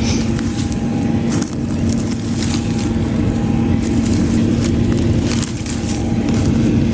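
Tractor engine idling steadily while the tractor sits out of gear, with light scattered clicks and rustles on top.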